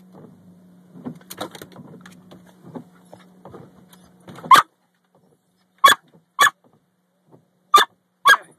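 A small curly-coated dog barking sharply at the car's moving windshield wipers: five short barks, the first about halfway through and the rest in two quick pairs. Before the barks there is a steady low hum with faint scraping and rustling.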